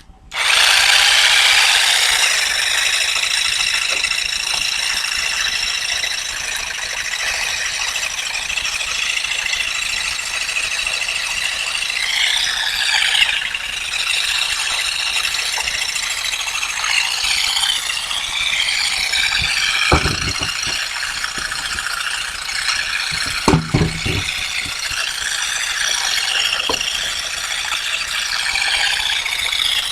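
Continuous loud mechanical rattling that starts abruptly, with a couple of brief thumps in the second half.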